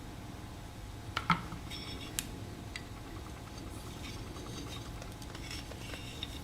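Metal tools and small metal parts clinking and knocking against each other during hand disassembly of a scooter's drive train: a few sharp clinks about a second in and again near two seconds, then lighter ticks over a steady low hum.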